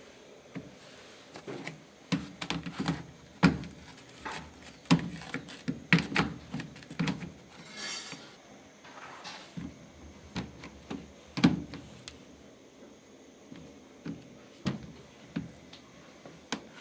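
Irregular knocks, thuds and clatter of hard objects being handled, with a short hiss about eight seconds in.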